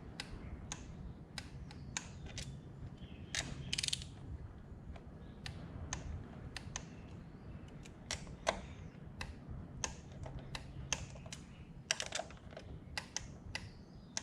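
Irregular light clicks and ratcheting from a hand torque wrench as the air cleaner's bolts are checked for torque.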